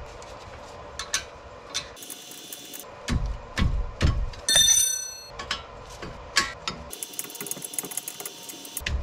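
Hand tools clicking and knocking against a car's front brake caliper as it is worked on over a new rotor, with a few dull thumps and one ringing metallic clink about halfway through.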